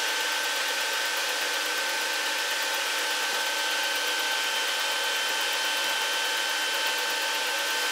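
Steady machine whir, with a few high, thin whining tones held level over an even hiss.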